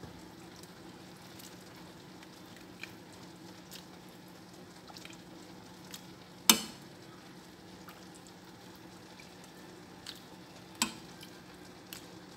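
Pot of vegetable soup simmering, its surface bubbling with a steady low hiss and scattered small pops. Two sharp clinks stand out, about six and a half seconds in and again near eleven seconds.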